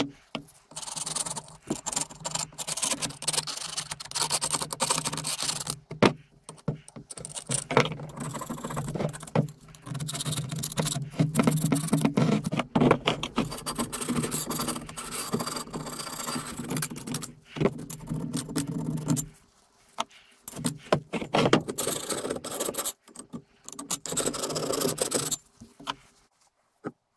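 Steel scraper blade scraping old paint and grime off a bench vice's sliding jaw, in repeated rough strokes with short pauses, stopping about a second before the end.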